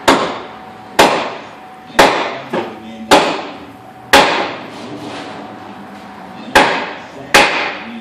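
Sledgehammer blows on the bare metal front end of a stripped Ford Escort: seven heavy strikes about a second apart with a couple of lighter hits between them and a pause of about two seconds before the last two, each ringing briefly in the shop. The blows are meant to knock the engine loose, but it is still held by its transmission and motor mounts.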